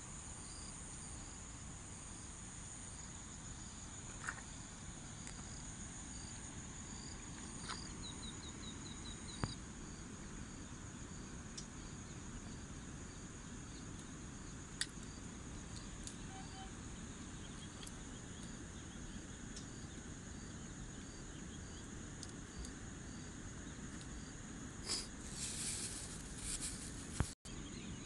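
Insects chirping in outdoor ambience: a steady high-pitched trill with regular short chirps repeating about twice a second, over a low background rumble. A few sharp clicks, and a brief louder rustle near the end.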